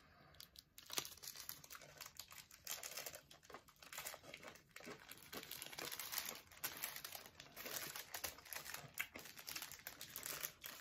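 Nerds Rope's foil-plastic candy wrapper crinkling as it is handled, in small irregular crackles.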